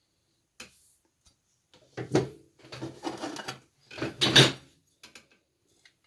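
Handling noise of small metal parts and tools on a workbench: a click, then three bursts of rubbing and clattering about 2, 3 and 4 seconds in, and a few light clicks near the end.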